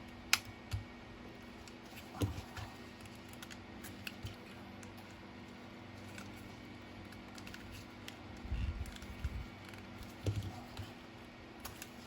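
Small, scattered clicks and taps from a plastic e-bike throttle housing being handled and pried apart. There is a sharp click about a third of a second in and a cluster of dull knocks around nine to ten seconds in, over a faint steady hum.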